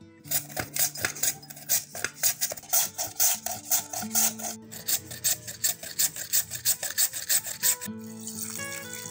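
Raw potato shredded on a plastic hand slicer-grater: rapid rasping strokes, about four a second, with a brief pause about halfway. Near the end the strokes stop and water pours into a glass bowl of shredded potato.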